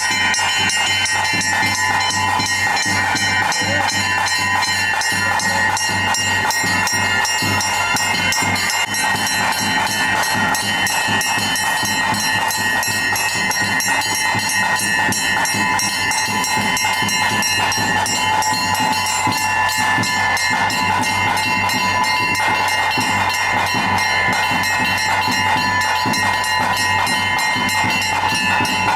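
Loud, continuous Bhuta Kola ritual music: bells and metal percussion ringing over rapid drumming, with steady held high tones.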